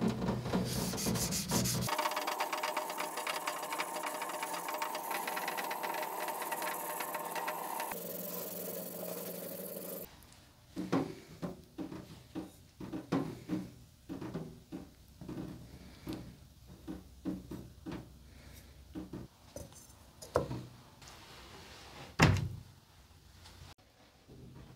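A yanagiba sashimi-knife blade stroked back and forth on a wet whetstone, a steady gritty scraping for about the first ten seconds. After that come scattered light clicks and knocks of the knife being handled, with one sharper knock near the end.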